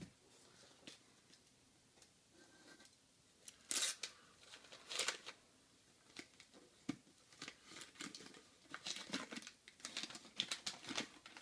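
Packing material rustling, crinkling and tearing as a can is unwrapped from a parcel, in irregular bursts, the loudest about four and five seconds in.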